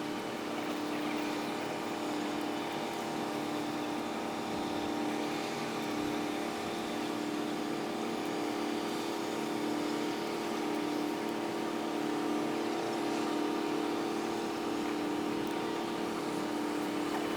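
Steady engine hum with a constant drone and a wash of noise from harbour traffic, played back sped up five times.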